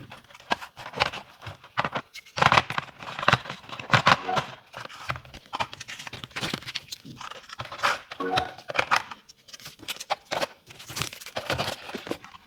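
Packaging being handled during an unboxing, crinkling and rustling in irregular bursts with sharp clicks.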